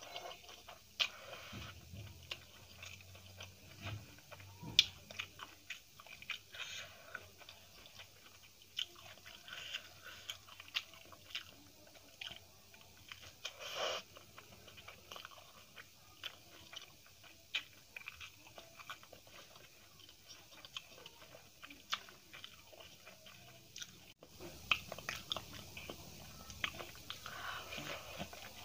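Close-up chewing of a mouthful of rice eaten by hand, with many small, sharp mouth clicks and an occasional faint crunch.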